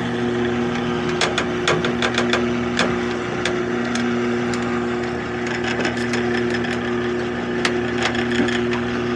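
Towboat outboard motors idling steadily, with scattered sharp knocks and clicks over the hum.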